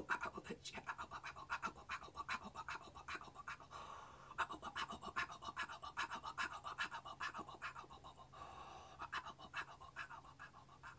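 A woman panting in quick, rhythmic breaths, about three a second, fading near the end.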